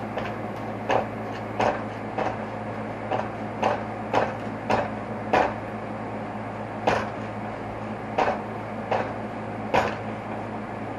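A series of short knocks, about one every half second to a second and uneven in strength, as a Yamaha DT250 front fork tube is worked loose from its clamps. A steady low hum runs underneath.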